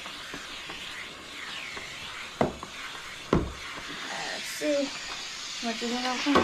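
Electric steam mop hissing as its pad is pushed across the floor, with two knocks about two and a half and three and a half seconds in, the second a heavier thud. Near the end come a few short murmured voice sounds.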